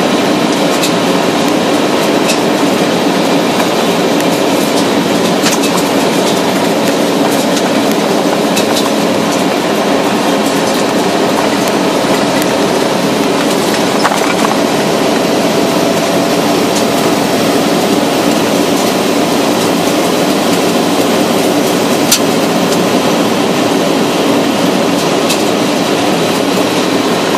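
A car rolling along a gravel road: a steady rumble of tyres on loose gravel, with scattered sharp ticks of stones flicked against the car.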